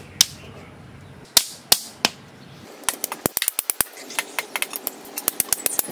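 Small hammer striking, fixing thin bamboo slats across bamboo rails: a few separate sharp strikes in the first two seconds, then quick, irregular light tapping from about three seconds in.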